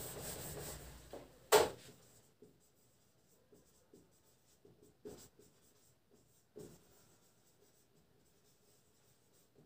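Marker pen writing on a whiteboard: faint, short scratchy strokes, with one sharp click about a second and a half in.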